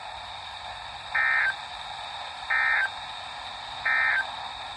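NOAA Weather Radio SAME end-of-message data bursts closing the weekly test: three short, identical warbling digital bursts, evenly spaced about a second and a half apart, heard over steady radio hiss.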